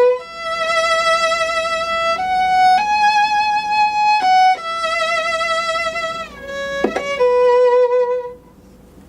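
Solo violin playing a slow melody of held single notes that climb and then step back down to the starting note, ending about eight seconds in. It is a pentatonic tune slowed down with one note changed, so that it sounds a hint Celtic.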